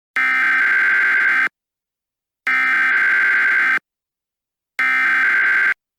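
Emergency Alert System SAME data bursts: three harsh, buzzing modem-like digital tones, each a little over a second long and about a second apart, the last one shorter.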